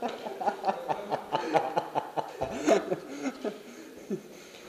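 People laughing and chuckling, with a couple of sharp clicks about halfway through.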